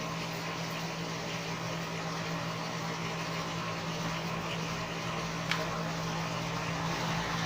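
Steady background hum with a constant low tone and a hiss, like a fan or electrical hum. One small sharp click about five and a half seconds in.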